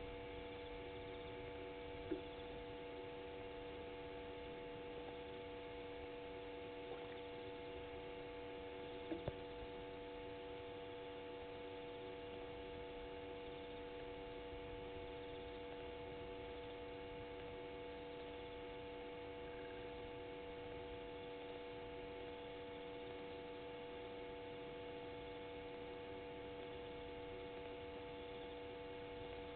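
Faint steady electrical hum, several unchanging tones held together over a soft hiss, with a few brief faint clicks about 2 and 9 seconds in.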